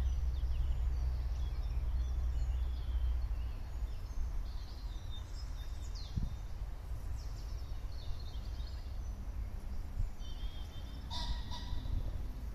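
Small birds chirping and singing, with a louder call about eleven seconds in, over a steady low rumble.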